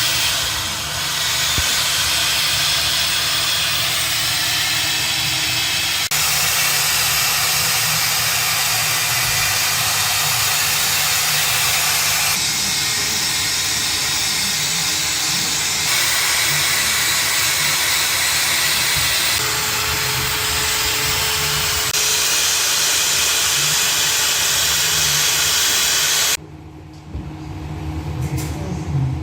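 Electric drill spinning a wire brush, scrubbing old head gasket material off the L28 engine's block deck: a loud steady hissing scrub that changes abruptly a few times and stops near the end.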